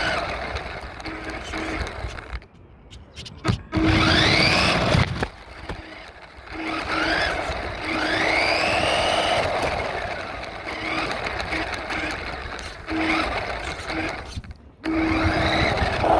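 RC truck's motor revving in short bursts, its whine sweeping up in pitch with each acceleration, with brief drops in between.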